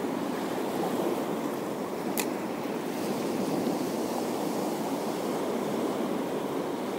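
Steady wash of sea waves on the shore, with a single sharp click about two seconds in.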